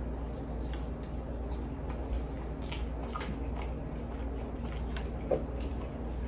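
Close-mouthed chewing of a crispy chicken tender in sticky honey chipotle sauce: faint, irregular wet clicks of mouth and teeth over a steady low hum.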